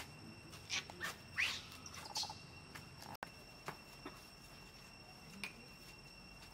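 Several short, high-pitched animal chirps with rising pitch, bunched between about one and two seconds in, over a faint steady high tone.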